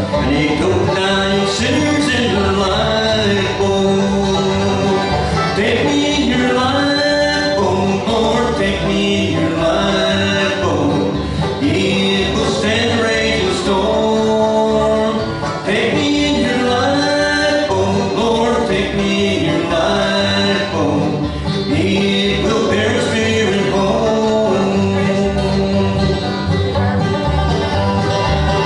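A bluegrass band playing a gospel song: singing over banjo and guitar.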